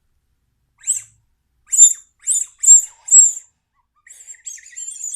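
Whistle candy blown like a whistle: five short, very high-pitched toots, then a quieter, wavering whistle near the end, a creepy noise.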